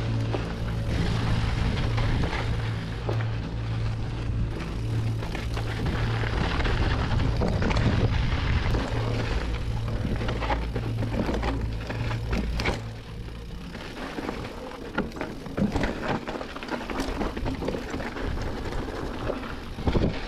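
Mountain bike ridden over rough dirt trail: tyre noise, wind on the microphone and frequent clicks and knocks from the bike rattling over rocks. A steady low hum underlies the first two-thirds and stops about thirteen seconds in, leaving only the trail rattle.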